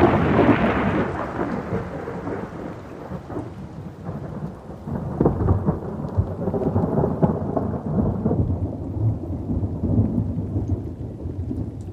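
Thunderstorm sound effect: a loud peal of thunder at the start, then rolling rumbles over steady heavy rain, swelling again about halfway through.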